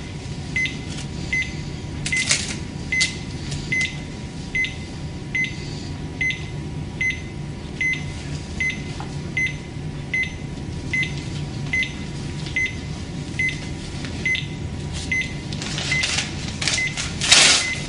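Cardiac monitor giving its heartbeat beep: a short high beep once with each heartbeat, about every 0.8 s, over a steady low hum. A louder rustle near the end as the electrode lead wires are handled.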